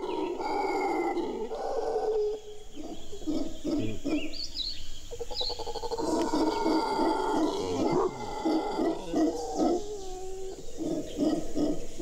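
Howler monkeys roaring: a long series of deep, throaty roars that pulse at about three or four a second in the second half. Each roar is resonated by the howler's enlarged skull and throat cavity, which lets it carry far through the forest.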